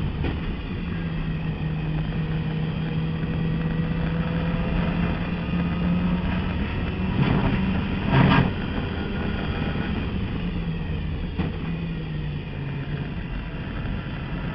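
In-car sound of a turbocharged race car's engine running hard along a straight with a steady note. Two sharp bangs come about seven and eight seconds in, the second the loudest. The engine note then steps lower as the car slows for the corner.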